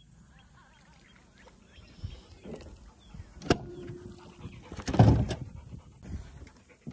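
Knocks and clicks of a bow-mounted Minn Kota electric trolling motor and its mount being handled on a boat deck. A sharp click comes about three and a half seconds in, followed by a short steady electric hum, and the loudest thump comes about five seconds in.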